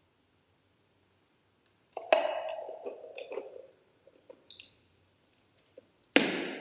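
Clicks and knocks of altar vessels and objects being handled and set down on the altar, some with a brief ring, the loudest knock near the end.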